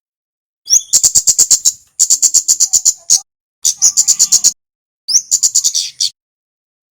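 Kemade songbird calling in four quick bursts of sharp, high chips, about eight notes a second. Each burst lasts about a second, with short pauses between them.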